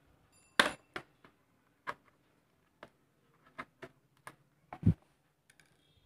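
Sharp irregular clicks and taps of a small screwdriver on the screws of a laptop's plastic bottom panel as the screws are undone, about nine in all, the loudest about half a second in and near five seconds.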